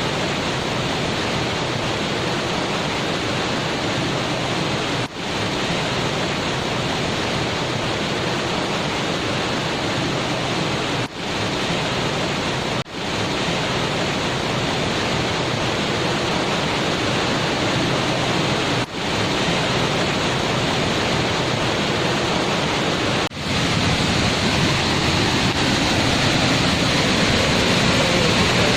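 Waterfall: a steady, loud rush of falling water, broken by a few very brief dropouts.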